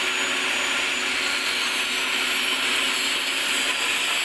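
Angle grinder running steadily on steel: a constant hissing rush with a faint high whine.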